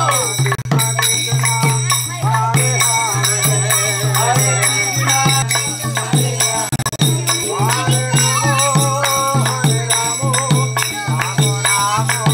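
Kirtan-style devotional music: voices singing a wavering melody over a steady beat of rattling, jingling hand percussion, with a constant low drone underneath.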